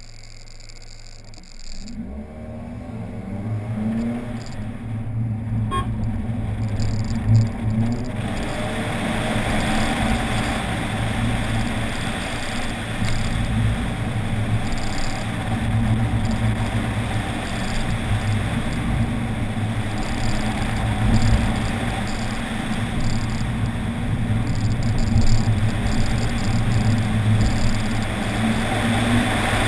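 2007 Scion tC's 2.4-litre four-cylinder engine launching off the start line about a second and a half in, its pitch climbing as it accelerates, then running hard through an autocross course. From about eight seconds on, a heavy rush of wind on the outside-mounted microphone runs under the engine.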